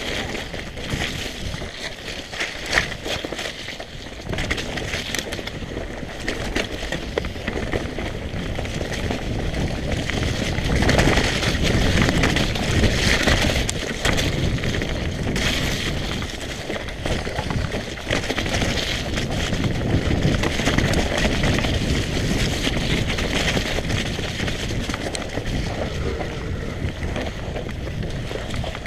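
Mountain bike ridden down a dirt trail: tyres on the ground, with the chain and frame clattering over bumps and wind buffeting the microphone.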